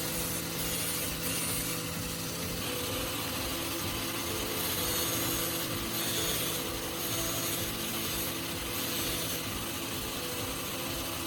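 Powered grinding wheel running with a steady motor hum while a steel drill bit is held against it and sharpened. The rough high grinding rasp swells and eases as the bit is pressed on.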